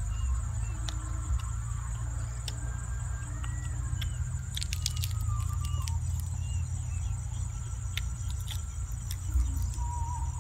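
Clicks and crackles of boiled chicken being pulled apart by hand and eaten, thickest about halfway through. Underneath is a steady low rumble, with a constant high-pitched insect drone and a few faint chirps above it.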